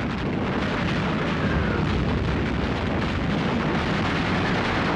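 Massed artillery barrage: many guns firing at once in a steady din, the blasts running together so that no single shot stands out.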